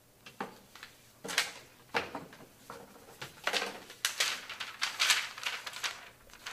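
Writing on a sheet of paper: a run of short, irregular scratching strokes that come faster and closer together in the second half, ending as the sheet is held up.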